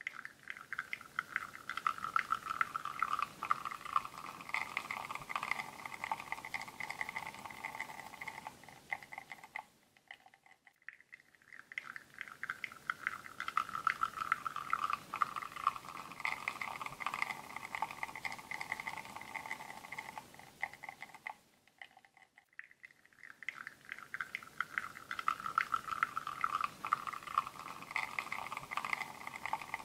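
Espresso machine pulling a shot through a bottomless portafilter: coffee streams and patters into a cup with a fine crackle over a faint whine that sags slightly in pitch. The shot sounds in spells of about ten seconds, breaking off briefly twice.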